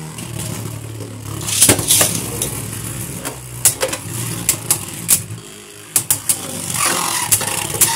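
Two Beyblade Burst QuadStrike tops, Fierce Bazalisk and Hydra Kerbeus, spinning in a plastic stadium, making a steady whirring scrape on the floor. Sharp clicks break in several times as they clash.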